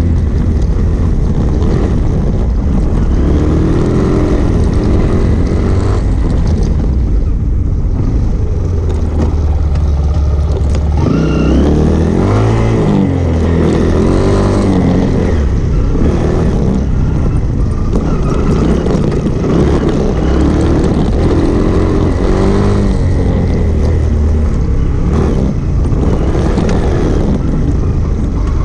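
Single-cylinder four-stroke motorcycle engine pulling along a rough dirt trail, heard close from the bike itself. The engine note rises and falls several times as the throttle is opened and closed.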